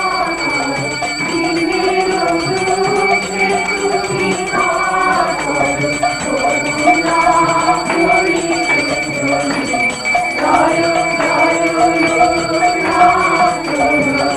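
Devotional music: a slow, wavering melody over jingling hand percussion.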